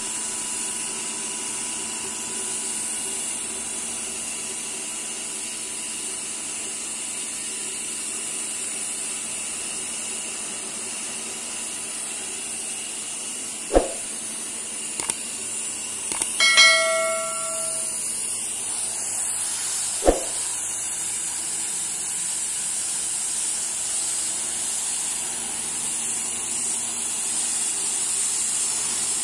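High-pressure washer running, a steady high hiss of the spray with a faint steady motor whine under it. A little past the middle come two sharp clicks and, between them, a brief bell-like ringing tone.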